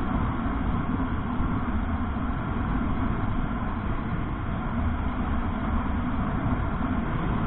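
Steady rumble of a motorcycle on the move, engine and wind and road noise running together on the rider's microphone.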